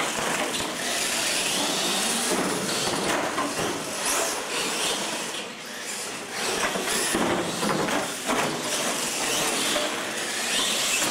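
Radio-controlled monster trucks racing, their electric motors whining up and down with the throttle over the hiss of tyres on concrete, with a few short knocks as the trucks land off the ramps.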